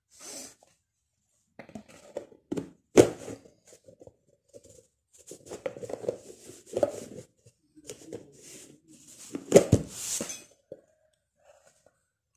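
White plastic spoon scraping and tapping in a red plastic bowl while stirring thick white printing paste, in irregular strokes with a sharper knock about three seconds in and another near the end.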